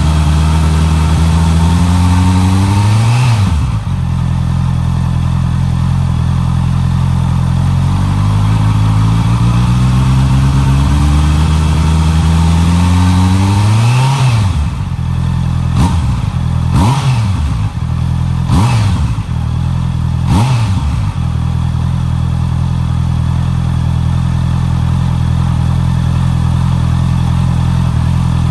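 Honda CB650R's inline-four engine on its stock exhaust, revved up slowly and released twice, then given four quick throttle blips and left idling steadily.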